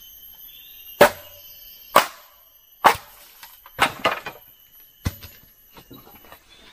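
Bamboo being split with sharp chopping blows, about one a second, the fourth a quick flurry of two or three strokes.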